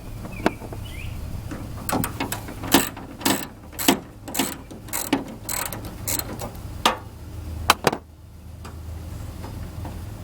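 Hand ratchet wrench clicking in short bursts, roughly one or two a second, as a bolt is worked loose; the clicking stops about eight seconds in.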